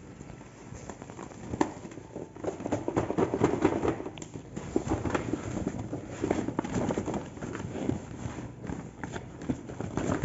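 Paper gift bag rustling and crinkling as a gift-wrapped box is pulled out of it, with irregular light taps and knocks of the box against the paper.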